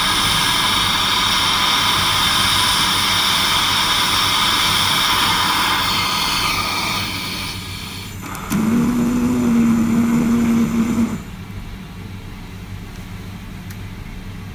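Oxygen-propane torch flame hissing steadily, with a faint whistle, as it heats a rusted nut to red heat. The hiss fades about seven seconds in as the flame is turned down; a steady low hum follows for a couple of seconds, then only a quieter background.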